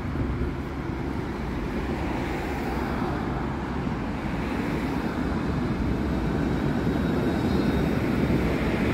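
City street traffic: a tram comes up the street and passes close by on its rails, with cars going past. The steady rumble grows louder toward the end as the tram draws level.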